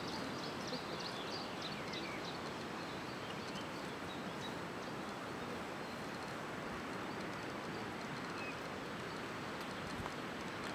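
Steady outdoor background hiss in an open field, with a small bird chirping in quick repeated notes during the first second and a few faint calls later.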